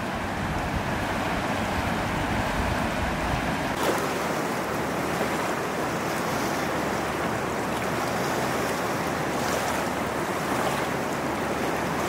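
Steady rush of a fast-flowing river running over riffles and rapids.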